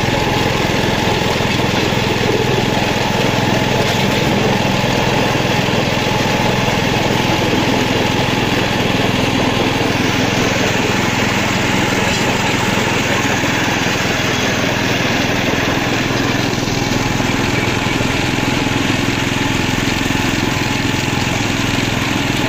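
A small engine running steadily at an even pitch.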